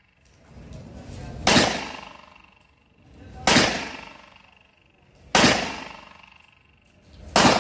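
Four pistol shots from a Rock Island Armory Tac Ultra FS HC, spaced about two seconds apart, each a sharp crack followed by a ringing tail that dies away over about a second.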